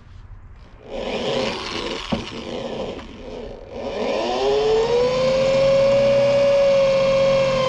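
Power drill boring a hole through a van's sheet-metal floor. It starts about a second in, stops briefly just before the middle, then spins back up into a steady high whine as the bit cuts the metal.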